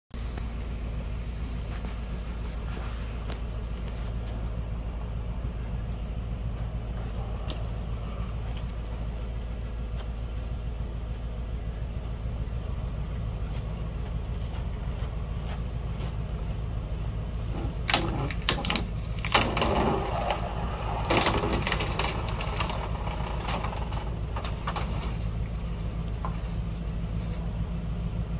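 Off-road 3rd-gen Toyota 4Runner crawling a rock ledge, its engine running low and steady. About two-thirds of the way through come a few seconds of crunching, knocking and scraping as tires and underbody grind on the rock.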